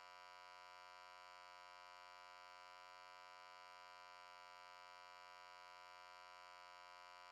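Near silence: a faint, unchanging steady tone.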